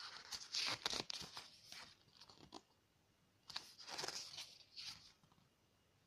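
Pages of a glossy photobook being turned by hand, the paper rustling and crackling in two bouts, one at the start and one in the middle.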